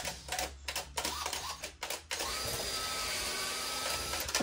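A handheld power drill running steadily for about two seconds, drilling into the wall to hang a shelf. Before it starts there are a few light knocks and clicks.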